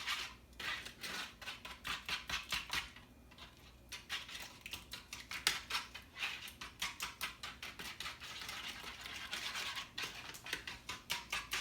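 Hand whisk beating eggs and sugar in a flat tray, its tines clicking against the tray in a quick rhythm of about four strokes a second, with a short pause early on.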